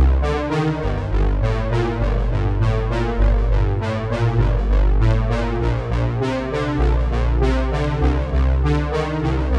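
Electronic music with synthesizer keyboard chords over a heavy, steady bass line and a regular beat.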